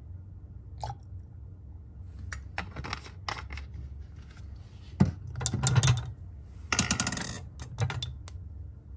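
Glass test tubes clinking and rattling against a wire test-tube rack and each other as one tube is lifted out. Scattered light clinks come first, then two dense rattling clusters about five and seven seconds in.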